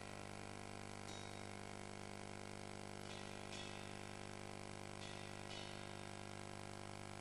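Steady electrical hum in the recording, faint and low in level. Faint short high taps cut across it, in pairs about half a second apart, repeating every couple of seconds.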